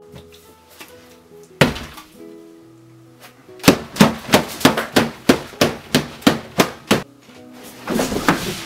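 Soft acoustic guitar music under one loud thump about a second and a half in, then a rapid run of about a dozen thumps and whacks, roughly four a second, from a man thrashing at a dinner table and flinging his plate. A short scuffling rush near the end.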